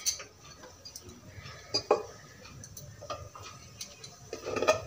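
Spatula stirring thick tomato masala in a pressure cooker pot, with scattered light clicks and knocks against the side of the pot.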